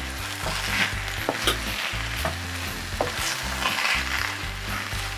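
A spoon stirring and scraping semolina and vegetables around a frying pan in short, irregular strokes, over a steady sizzle of the hot mixture cooking.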